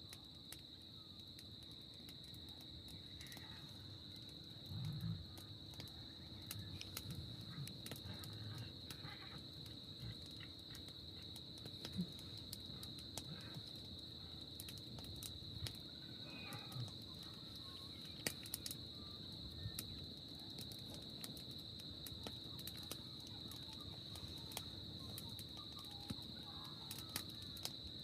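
Steady, high-pitched chorus of crickets or other insects, with scattered light clicks and a few soft low thumps, the clearest about five seconds in.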